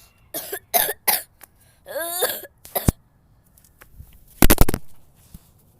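A girl in a hard coughing fit: three quick coughs, then a strained rising vocal sound about two seconds in. The loudest sound comes about four and a half seconds in: a brief loud knock or thump.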